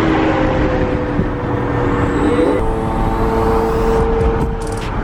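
Lamborghini Aventador's V12 engine pulling under acceleration, heard from inside the cabin. Its pitch climbs steadily, drops at an upshift about two and a half seconds in, then climbs again.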